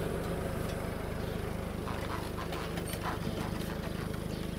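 Car engine running at a crawl while towing a wooden cart loaded with long boards, with a steady low hum. A few short faint sounds come about two to three seconds in.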